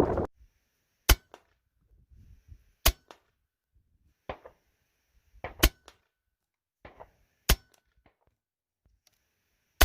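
.177 Hatsan Nova air rifle firing 15-grain dish-base slugs: five sharp shots about two seconds apart, each followed by a faint tick, with softer clicks between shots.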